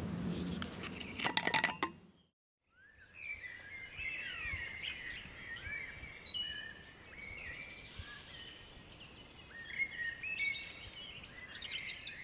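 Woodland birdsong: several birds chirping and whistling in short sweeping calls over a light background hiss. It is preceded by a few sharp clicks about a second and a half in and a brief moment of silence.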